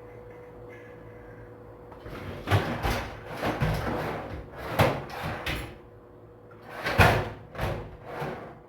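A faint steady hum, then from about two seconds in a run of knocks and clatters, the loudest about seven seconds in: tools being rummaged through and drawers or cupboards opened and shut.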